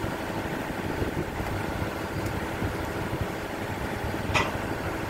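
Steady rumble of a ship's engines and machinery, with a single sharp click about four seconds in.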